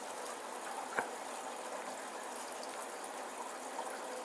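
Steady faint hiss of running or bubbling water, with one small sharp click about a second in.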